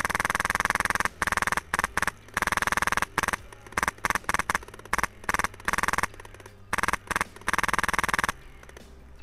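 Airsoft light machine gun firing full-auto in bursts: a long burst at the start, a string of short bursts, then another long burst that stops abruptly near the end.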